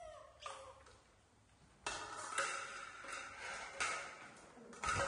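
Melamine plates clattering and knocking on a tiled floor as they are carried and set down, several sharp knocks with a ringing clatter after each.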